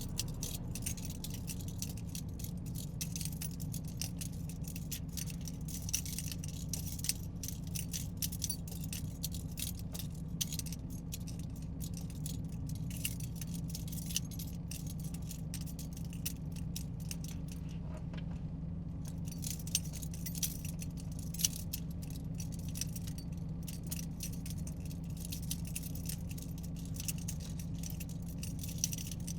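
Inside a moving car's cabin: steady low engine and road rumble, with constant rapid light clicking and rattling from loose items jingling, which stops briefly about two-thirds of the way through.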